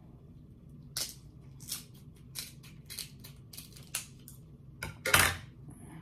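King crab leg shell crunching and cracking as a knife cuts into it and hands break it open: a series of short, sharp cracks roughly every half second, with a louder crack a little after five seconds in.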